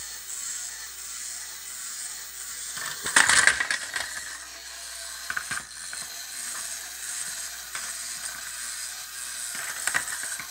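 Small electric motor and plastic gearbox of a Tamiya rowing-boat kit running, a steady whir with a regular rhythmic clicking from the crank and oar linkage. A burst of loud plastic clattering and knocks about three seconds in, with a few more near the middle and the end, as the running model is handled and tilted.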